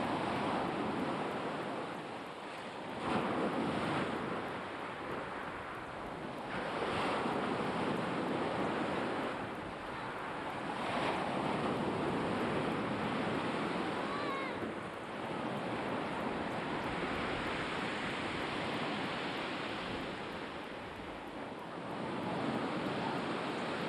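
Black Sea waves washing onto the shore, the surf swelling and falling back every few seconds.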